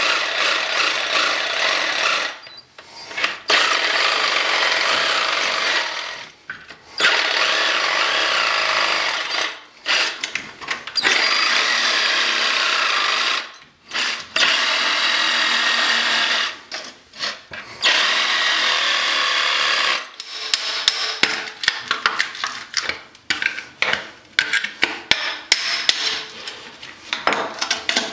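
Cordless oscillating multi-tool cutting through the PVC of an old toilet flange, running in long bursts of a few seconds with short pauses between. For the last several seconds it gives way to a rapid run of short, sharp knocks and scrapes.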